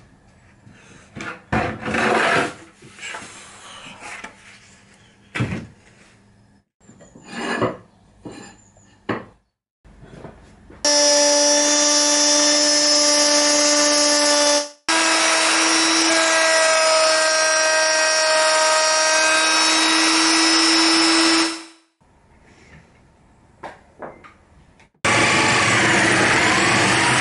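Handheld plunge router running and cutting into plywood in two long runs of several seconds, a steady high whine, after a stretch of knocks and scrapes as the board is handled. Near the end a drill spinning a sanding drum starts up and sands the wood inside the routed recess.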